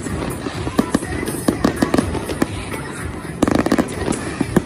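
Fireworks going off in a string of sharp bangs, with a quick rapid-fire run of crackling bangs about three and a half seconds in. Music plays underneath.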